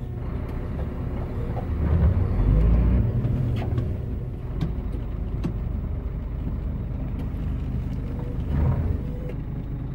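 Scania 114G 380's 11-litre inline-six diesel idling, heard from inside the cab, with a short rise in engine speed about two seconds in and a few light clicks.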